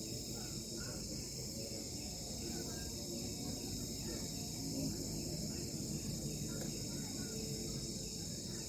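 Crickets chirring in a continuous, steady high-pitched chorus, with a low murmur of background noise underneath.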